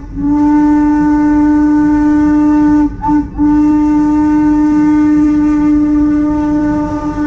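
Steam locomotive whistle blowing a long blast, a brief toot, then another long blast, the close of the long-long-short-long grade-crossing signal.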